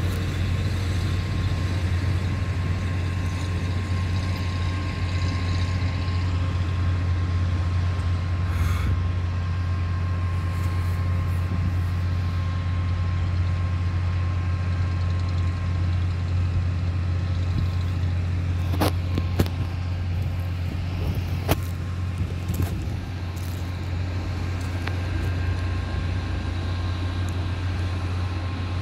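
Heavy diesel road-works machinery running with a steady low drone. A few sharp clicks come about two-thirds of the way through.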